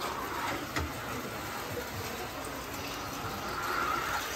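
Steady hissing and sizzling of steam from a hot iron shrimp-cracker press clamped shut on the batter and shrimp, growing a little louder near the end, with a light knock about a second in.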